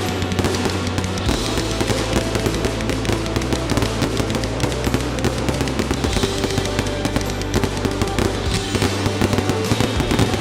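A fireworks display going off in rapid crackles and bangs, over music with a steady bass line.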